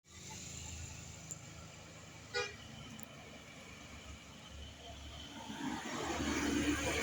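Street traffic with a steady low engine hum and a single short vehicle-horn toot about two and a half seconds in. Near the end the traffic noise grows louder.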